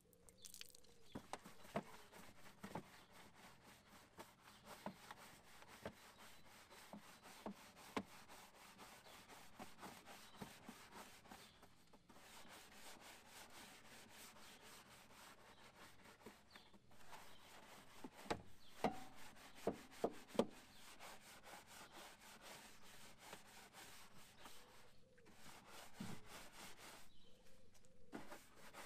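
Faint brush scrubbing, a steady rubbing scrape over a surface, with scattered light knocks and a short run of louder knocks about two-thirds of the way through.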